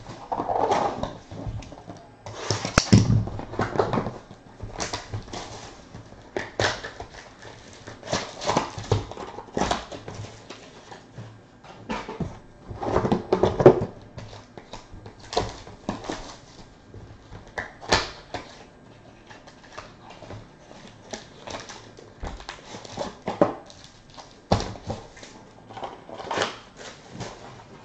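Trading cards and foil card packs being handled on a tabletop: irregular taps and knocks as card stacks are set down and squared, with rustling between them.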